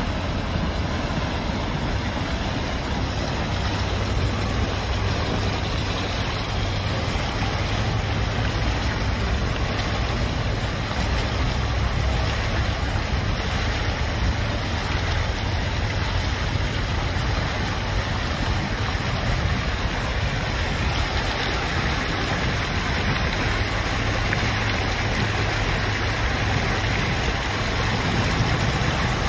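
Many fountain water jets splashing steadily back into a shallow pool, with a low rumble of road traffic underneath.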